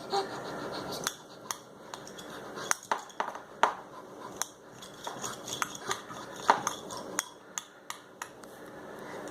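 Cookie cutters and play-dough tools clicking and knocking against each other and the work surface: a dozen or more small, irregular taps and clatters as a child handles them.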